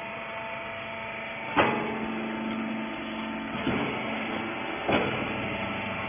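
Hydraulic baler's power unit running with a steady hum, with three short knocks: one about a second and a half in, one near the middle, one near the end.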